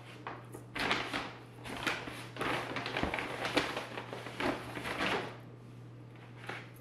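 Paper shopping bags rustling and crinkling in irregular bursts as a cardboard candle carrier is lifted out and handled, over a steady low hum.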